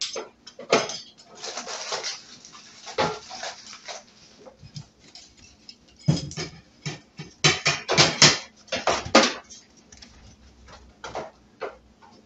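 Sheet-metal back panel of an electric stove clanking and rattling against the stove's frame as it is fitted and screwed on, with clicks and scraping from a hand screwdriver. The knocks come irregularly, loudest and closest together about eight to nine seconds in.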